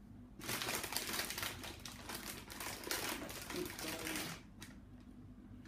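A marshmallow packet crinkling and rustling as hands dig in to take out marshmallows; it stops about four and a half seconds in.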